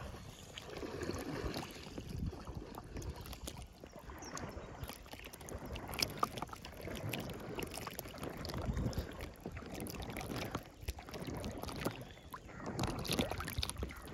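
Water lapping and splashing against the hull of a small canoe as it moves across a lake, with a few short light knocks.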